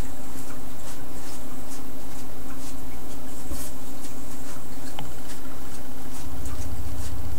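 Room tone: a steady low hum with hiss, and a few faint scattered ticks.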